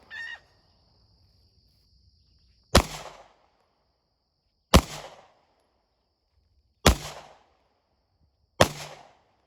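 Four pistol shots at an outdoor range, fired one at a time about two seconds apart, each a sharp crack with a short echoing tail. Just after the start there is a brief metallic clink.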